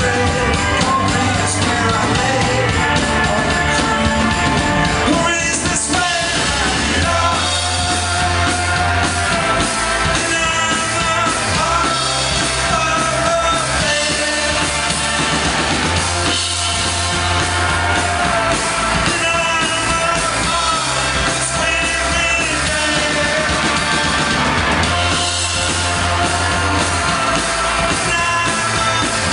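A rock band playing live: electric guitars, bass guitar and drum kit, loud and continuous.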